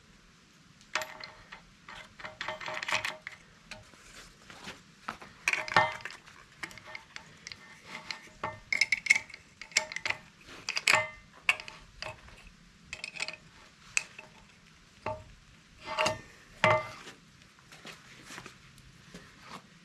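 Heavy steel pieces being handled and knocked together in irregular clanks, several of them ringing briefly as the steel sounds after each hit.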